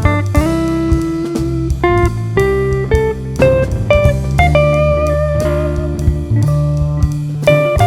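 Background music: plucked guitar melody over bass and drums with a steady beat.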